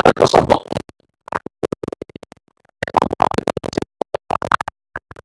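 Choppy, stuttering audio that cuts in and out: fragments of a man's voice broken up into rapid clicks, with sudden drops to silence.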